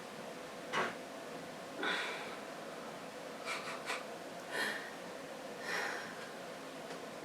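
A woman breathing in short, soft, noisy breaths, about six of them spread over several seconds.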